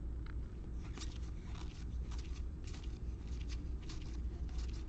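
Faint, irregular clicks and rustles of Panini Absolute football trading cards being thumbed and slid through a stack by gloved hands, over a steady low hum.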